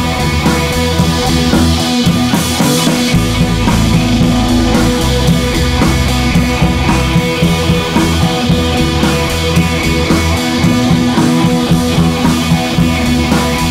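Rock background music with guitar and drums and a steady beat.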